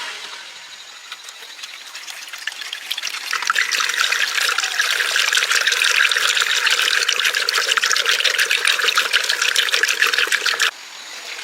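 Strong water spray hissing steadily, building up about three seconds in and cutting off suddenly near the end.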